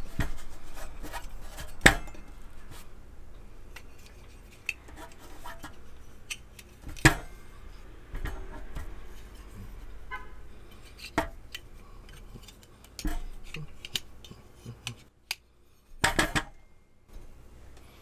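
Stainless-steel folding leg assembly of a Uniflame Fire Grill Solo fire stand being opened out by hand: scattered metal clinks and clacks as the legs swing and lock. Sharper knocks come about two seconds and seven seconds in, with a cluster near the end as it is stood up.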